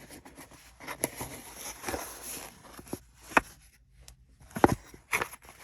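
Handling noise from small parts and their packaging: light rustling and scraping with a few sharp taps, one about a second in, one around three and a half seconds, and two near the end.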